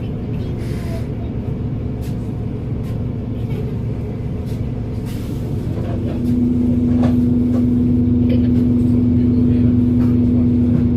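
Volvo B7RLE bus engine running, heard on board, with a low steady drone. About six seconds in, a strong steady hum sets in and the sound grows louder, with a few faint knocks and rattles over it.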